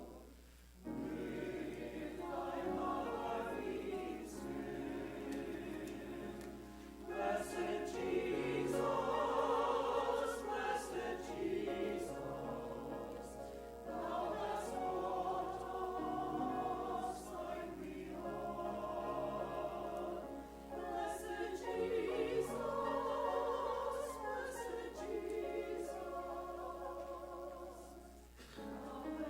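A choir singing a hymn, sustained phrases with short breaks between them.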